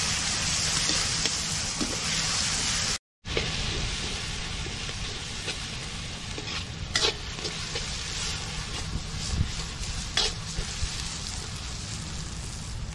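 Onions, tomatoes and dried red chillies sizzling in oil in a black iron kadai, stirred with a metal perforated ladle that scrapes the pan now and then; the masala is at the sautéing stage, frying until soft. The sound cuts out briefly about three seconds in.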